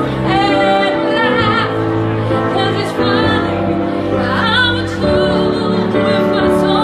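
A woman singing live into a microphone, holding long notes with a wide vibrato, over instrumental backing music.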